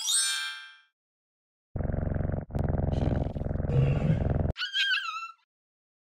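Sound effects on an animated logo end card: a short falling chime, then a low rumbling roar-like sound for about three seconds with a brief break, then a short high call that wavers in pitch.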